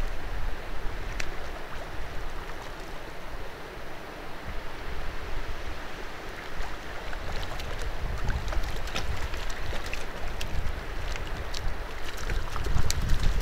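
Wind buffeting the microphone as a steady low rumble over an even outdoor rush. Scattered sharp clicks and ticks come in from about seven seconds in and grow busier near the end.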